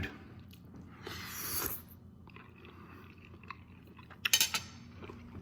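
A person eating a bite of hot fried egg, with quiet chewing, a short breathy hiss about a second in, and a few sharp clicks of a fork against a plate a little after four seconds.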